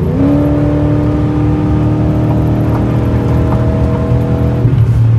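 Lexus LS400's 1UZ-FE 4.0-litre V8 pulling hard at full throttle after a kickdown downshift, heard from inside the cabin over steady road drone. The engine note comes in sharply, rises slowly in pitch as the revs climb, and falls away near the end as the throttle eases.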